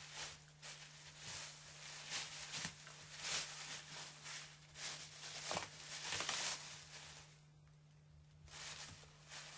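A West Highland terrier rummaging with its nose and paws through a pile of shredded paper, the strips rustling in quick irregular bursts. The rustling stops for about a second near the end as the dog lifts its head.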